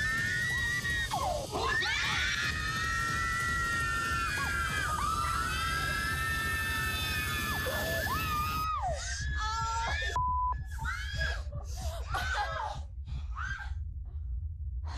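Women screaming in shock and horror, long high screams that rise and fall. About nine seconds in the sound changes abruptly, and shorter screams follow with gaps between them.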